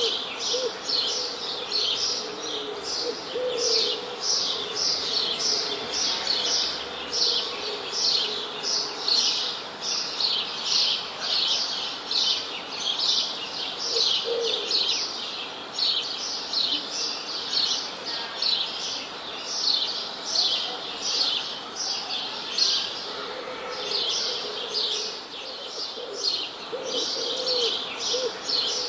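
Birds chirping: a dense, steady run of short high chirps, about two a second, with a few lower calls now and then.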